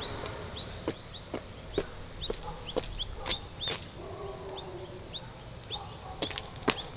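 Birds chirping: a steady run of short, repeated chirps about twice a second, with louder sharp clicks or calls scattered among them.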